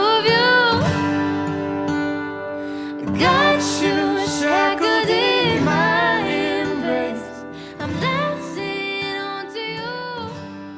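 Acoustic guitar strumming under wordless, melismatic vocal runs: the closing bars of a slow acoustic ballad.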